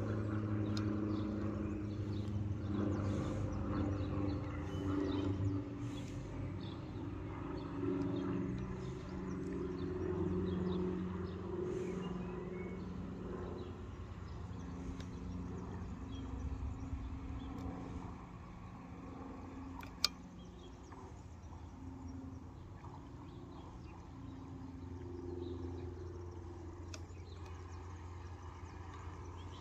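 A steady low mechanical rumble, a little louder in the first half, with a single sharp click about two-thirds of the way through.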